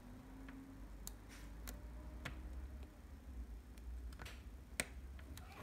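Faint, scattered clicks of small plastic toy parts being pressed and snapped together while fitting a piece onto a miniature plastic rolling basket. There are about half a dozen irregular clicks, the sharpest near the end.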